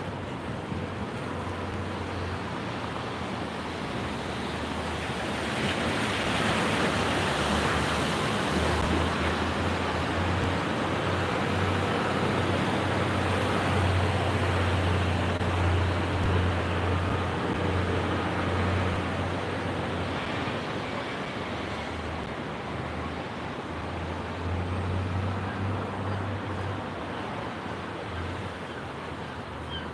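Traffic on a wet street, tyres on the wet pavement. A heavy truck's engine rumble swells about a third of the way in, peaks midway and fades as it passes.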